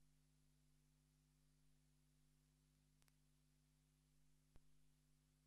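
Near silence: a faint steady hum, with two tiny clicks about three and four and a half seconds in.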